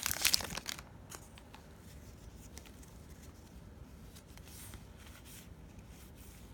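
Trading cards being handled: a brief rustle in the first second, then faint sliding and light clicks as the cards are moved past one another.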